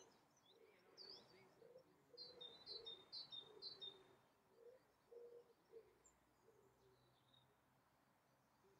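Faint outdoor birdsong: a bird gives a quick run of short high chirps a couple of seconds in, among other scattered calls.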